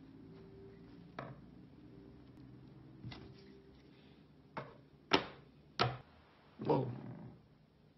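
Knocks of a mallet-like tool hitting a twig on a wooden tabletop: two faint taps, then four louder blows in quick succession over the second half, the loudest about five seconds in.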